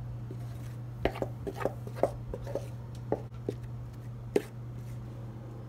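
A wooden spoon scraping cake batter out of a plastic mixing bowl into a cake pan. There is a quick run of about a dozen light knocks of spoon against bowl over a few seconds, the last the loudest. A steady low hum runs underneath.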